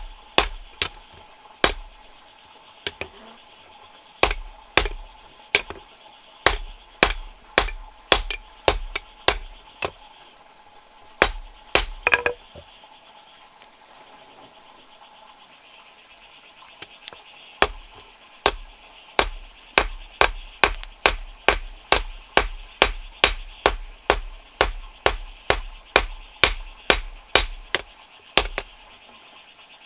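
Hand hammer striking in a steady rhythm, about two blows a second, with a pause of several seconds partway through; one blow in the pause gives a short ringing tone.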